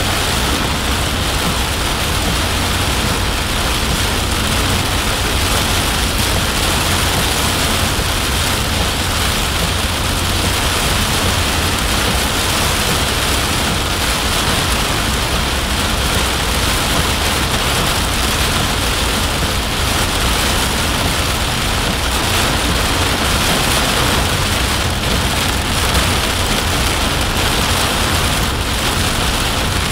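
Heavy rain pelting the roof and windshield of a moving vehicle, heard from inside the cab as a steady hiss over a constant low rumble.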